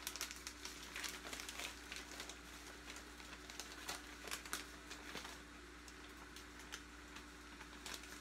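Plastic bag of frozen spinach crinkling as it is handled and shaken out into a pan, with scattered faint crackles.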